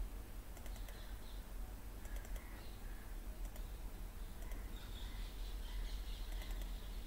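Scattered keystrokes on a laptop keyboard: a few short clusters of key clicks, over a steady low hum.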